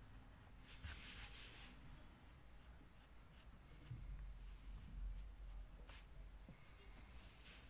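Faint scratching of a graphite pencil on paper in short, quick strokes as a cartoon figure's arm is sketched, with a denser run of strokes about a second in. A soft low rumble rises around the middle.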